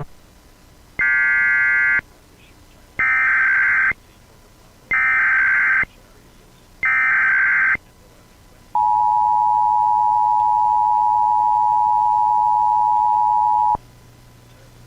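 Emergency Alert System encoder tones: four screeching bursts of digital SAME header data, each about a second long and a second apart. They are followed by the steady two-tone EAS attention signal, held for about five seconds and then cut off.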